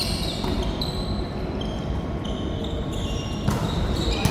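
Sneakers squeaking on an indoor court during a ball game, with a ball struck about three and a half seconds in, over the hum of a large hall.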